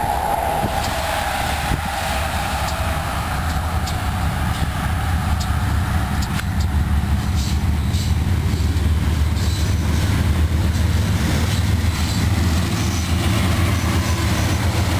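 C40-9W and ES44DC diesel locomotives approaching and drawing alongside at the head of a loaded coal train, their engines' low drone growing steadily louder. A wavering higher tone fades away in the first few seconds.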